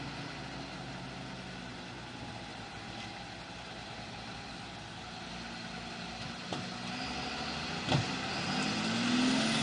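A vehicle engine running steadily, then rising in pitch and loudness over the last couple of seconds as it revs up, with a single knock about 8 seconds in.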